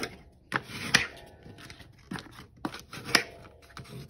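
Heavy mixed-media paper being folded and pressed into concertina creases: rustling with several short, sharp crackles and taps, the loudest about a second in and again about three seconds in.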